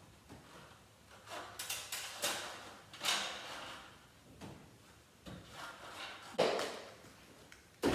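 A string of light metal knocks, clinks and rattles, with some scraping between them, from hardware being handled and fitted by hand.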